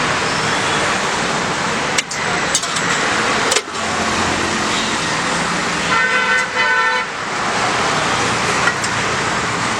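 Steady road traffic noise with a vehicle horn honking a quick run of short toots about six seconds in, and a few sharp knocks a little earlier.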